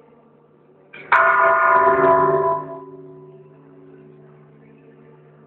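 A church bell struck once by its rope-pulled clapper about a second in. It rings with several overlapping tones for about a second and a half, then drops away sharply into a fainter lingering ring over a low steady hum.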